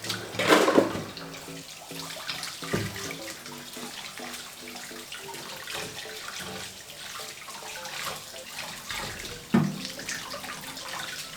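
Water running from a kitchen tap into a sink, with a louder splash about half a second in and another near the end.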